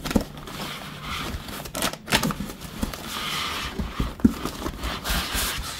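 Rustling and scraping of plastic parts bags and foam packing as hands dig through a kit box, with a few sharp knocks.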